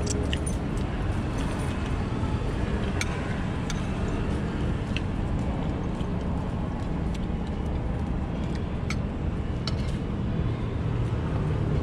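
Steady low outdoor rumble, with scattered light clicks and clinks of dishes and utensils as diners eat at the table.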